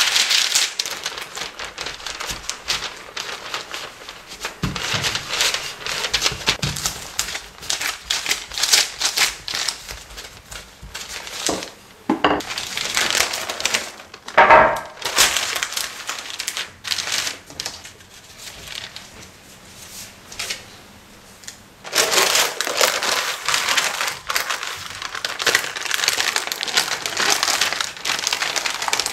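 Parchment paper rustling and crinkling as it is handled over rolled tart dough, coming and going irregularly, with a quieter stretch in the last third. A brief squeak sounds about halfway through.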